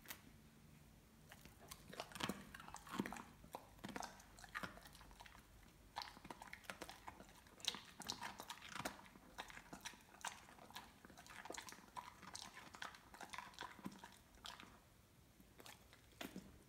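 A dog chewing crunchy raw carrot: faint, irregular crunching and biting that runs on in quick bursts and thins out near the end.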